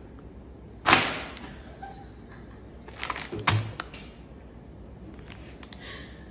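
Handling noises: a loud rustle of the foil blind-box wrapper about a second in, then a few clicks and a dull thump as the plush figure is set down on the wooden table.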